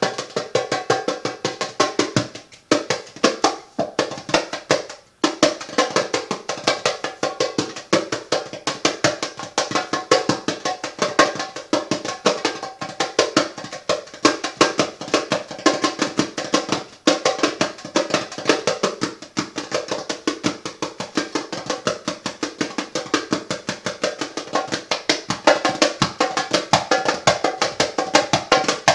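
Hand drum played with a fast, steady stream of sharp strokes, with two brief breaks in the first few seconds.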